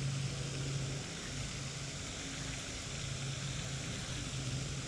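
Spinning reel being cranked to bring in a hooked channel catfish, over a steady hiss with a low hum that breaks off and comes back several times.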